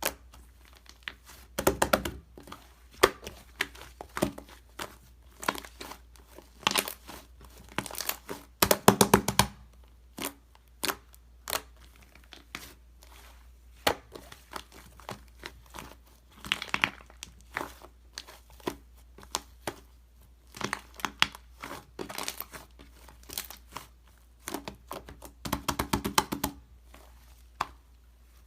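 Slime being worked by hand as three colours are mixed in: irregular crinkly crackles and tearing sounds, with louder clusters of crackling near the start, about a third of the way in, and near the end.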